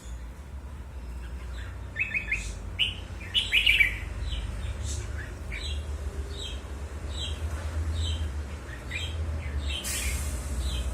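Red-whiskered bulbul calling in short, sharp downward chirps, first a quick run of them, then single calls spaced about half a second to a second apart, over a steady low rumble.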